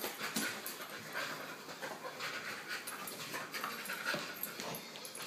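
Chocolate Labrador retriever panting while a towel is rubbed briskly over her wet coat, the towel rustling against the fur.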